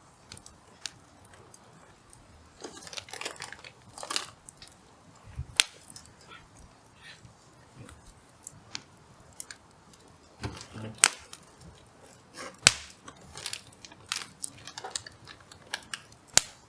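Hardwood fire crackling in a small fire pit, with sharp irregular pops and snaps, a few of them much louder than the rest.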